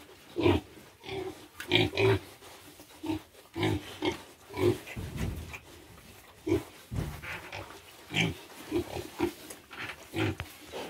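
Two-month-old pigs grunting, a string of short, irregular grunts coming more than once a second.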